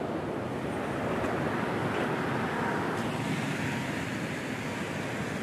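Sea surf breaking and washing over the rocks below, a steady rush of waves that swells a little about two seconds in.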